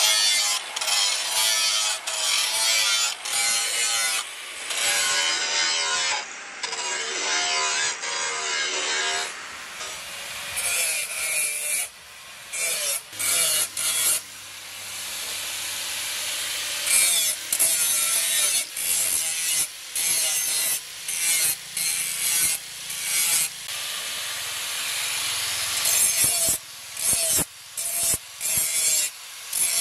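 Handheld angle grinder grinding the steel of a crescent blade cut from a disc plough, in repeated passes broken by short gaps where the disc leaves the metal. The gaps come quicker in the second half.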